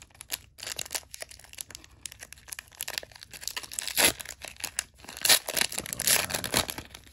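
Foil wrapper of a Pokémon trading-card booster pack being torn open by hand: irregular crinkling and tearing, with the loudest rips in the second half.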